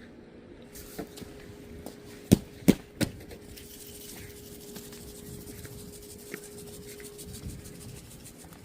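Rock salt being scattered onto cleared pavement, the grains landing as many small faint ticks, with three sharp knocks in quick succession about two to three seconds in and a faint steady hum underneath.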